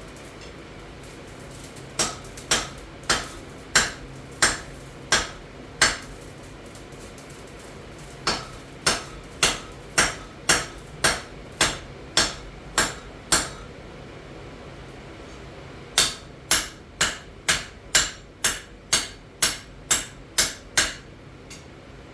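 Blacksmith's hammer striking metal on an anvil in three runs of steady blows, about two a second, each blow ringing briefly, over a low steady hum.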